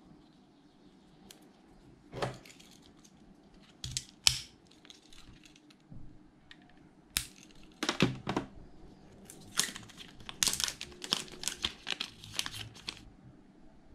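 Thin plastic protective film being lifted with a pocket-knife blade and peeled off a laptop power adapter: scattered sharp crackles and clicks, thickening into a run of crinkling near the end.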